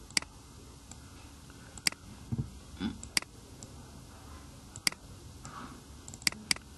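Computer mouse clicking: about six short, sharp clicks a second or more apart, the last two in quick succession near the end, over a low room background.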